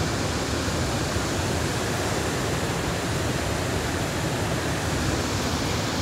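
Steady rush of fast-flowing river water over a rock shelf below a waterfall, an even noise with no breaks.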